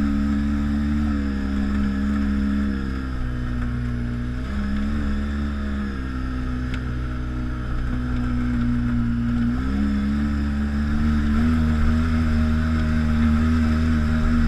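ATV engine running while riding, its pitch dropping and rising in steps a few times as the throttle changes, with a steady hiss on top.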